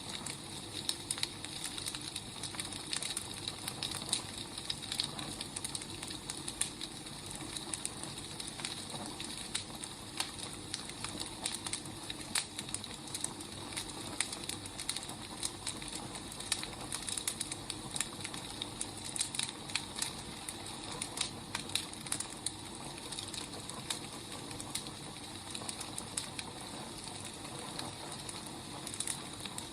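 Wood fire crackling: a steady hiss with frequent small pops and snaps of burning firewood.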